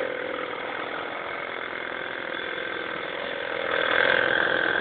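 Overhead-cam lawn mower engine running steadily and smoothly. About four seconds in it gets louder, with a higher whine added.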